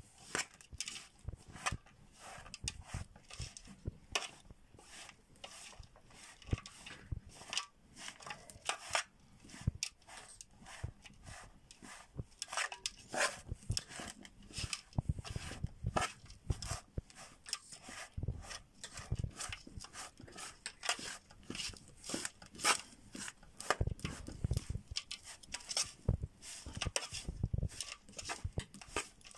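Metal spoon stirring a dry mix of grated coconut and dry fruits in a large aluminium pot, with irregular scraping and clinks against the pot and rustling of the dry mix.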